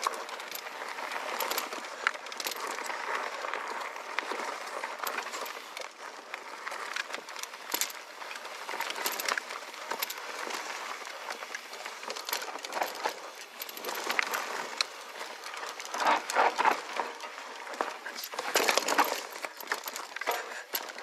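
Mountain bike descending a dirt singletrack: knobby tyres rolling over dirt and roots, with frequent clicks and rattles from the bike over the bumps. It gets louder and rougher about 16 and 19 seconds in.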